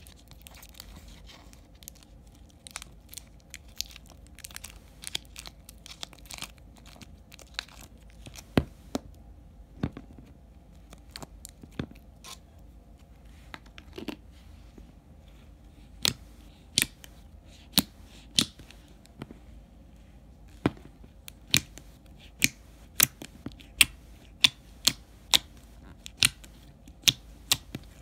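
Hands pressing, poking and stretching glossy pink slime in a clear plastic tub, making sharp clicks and pops. They are sparse and softer at first, then louder and more frequent, about one to two a second, from about halfway through.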